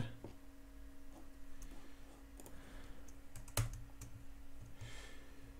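A few scattered clicks from a computer keyboard, one louder about three and a half seconds in, over a faint steady hum.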